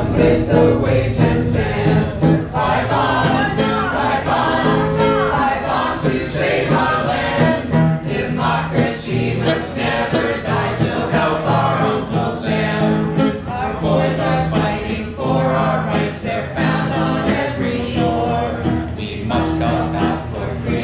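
A group of men and women singing together into microphones, several voices in harmony over steady low held notes.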